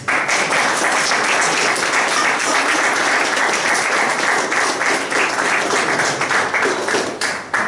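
Audience applauding, the clapping starting all at once and dying away near the end.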